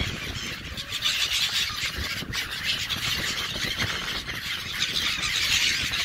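A large flock of black-headed gulls calling all at once, a dense chorus of shrill squealing cries that swells about a second in, typical of gulls crowding in to be fed.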